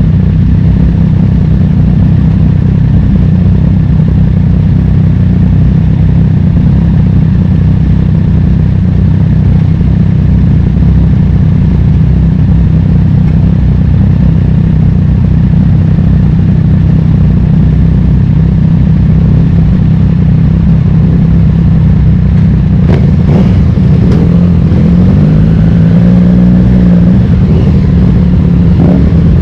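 Vintage racing motorcycle engine running loud and close at a steady pitch, then rising and falling in pitch with a few sharp clicks near the end.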